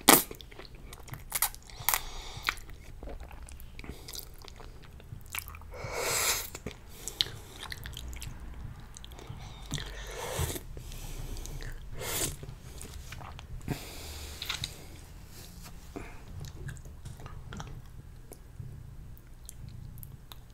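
Close-miked eating of creamy fettuccine noodles: a loud slurp as the noodles are drawn in at the start, then wet chewing with many lip smacks and mouth clicks.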